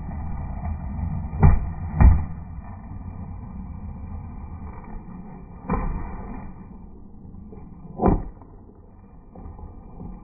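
Skateboard wheels rolling on concrete, a steady low rumble, broken by sharp clacks of the board: two close together about a second and a half in, one near six seconds, and one about eight seconds in.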